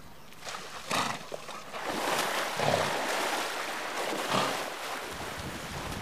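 Przewalski's horses wading and drinking in shallow water, hooves splashing in a rushing noise that builds about two seconds in and eases off near the end, with a few short low animal sounds among the splashes.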